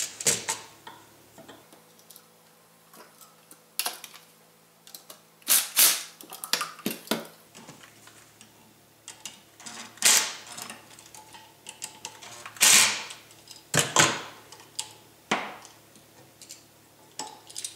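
Scattered sharp clicks and clacks with rustling between, from tools, wires and a receptacle being handled at a wall electrical box.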